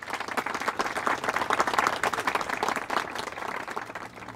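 Applause from a crowd: many hands clapping. It swells to its loudest about a second and a half in, then dies down.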